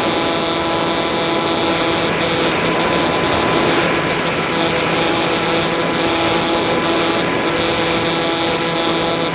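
Easy Star RC model plane's electric motor and pusher propeller heard from the onboard camera: a steady, even whine with several pitches held level, over a constant rush of air.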